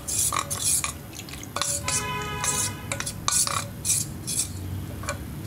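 A metal spoon stirring custard powder and milk in a small stainless-steel bowl, scraping and clinking against the sides in quick repeated strokes, dissolving the powder to a smooth paste. A brief ringing tone sounds about two seconds in.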